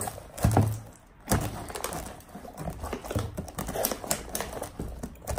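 Hands squeezing and kneading sticky homemade slime in plastic bowls: irregular soft thuds and squishes, several a second at times.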